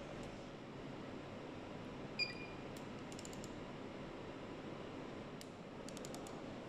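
Steady hum of a factory assembly hall, with a short electronic beep about two seconds in and small clusters of light, quick clicks a little later and again near the end.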